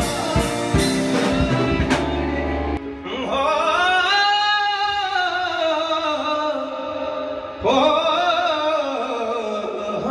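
Backing music with a drum beat that stops about three seconds in, leaving a man's voice singing two long held notes, each swelling up and then falling away.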